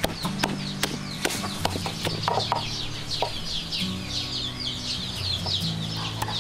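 A wooden pestle pounds chili paste in a mortar, giving sharp knocks about twice a second. Chickens chirp over it with many short, falling peeps.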